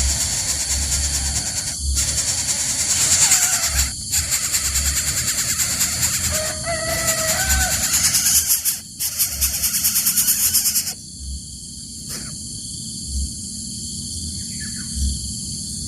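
High-pitched buzzing chorus of insects, with a few short gliding bird calls about halfway through. The buzzing cuts off suddenly near the end, leaving a quieter background with faint bird calls.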